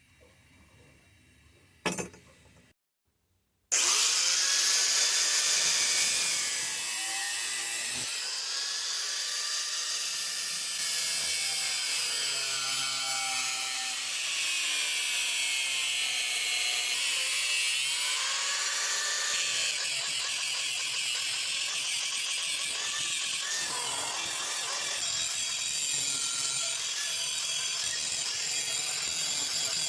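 Power grinder working a steel knife blank: a loud, steady grinding hiss whose motor pitch sags and recovers as it bears on the steel. It starts abruptly about four seconds in, after a near-quiet stretch with one click.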